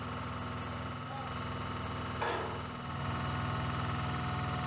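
A ground-support vehicle's engine idling steadily, with one sharp knock a little over two seconds in.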